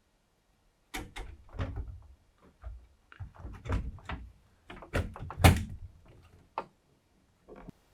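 PC parts and case being handled during assembly: an irregular run of clicks, knocks and thumps, the loudest thump about five and a half seconds in.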